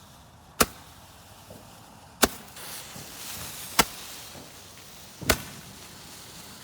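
A Roman candle firework shooting: four sharp pops about a second and a half apart, with a hiss of burning between the later shots.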